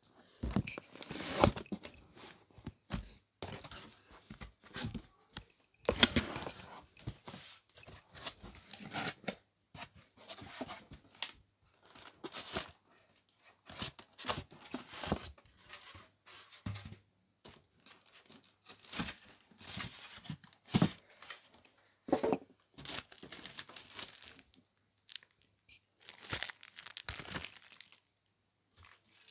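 Cardboard shipping box being unpacked by hand: flaps scraping, polystyrene foam packing blocks rubbing as they are pulled out, and plastic wrapping crinkling. The rustles and scrapes come in irregular bursts, the loudest about a second in and about six seconds in.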